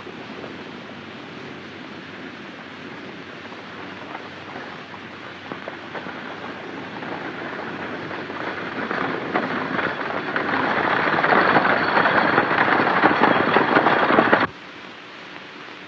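Galloping horses' hoofbeats, a dense clatter that grows steadily louder from about six seconds in, then cuts off abruptly near the end.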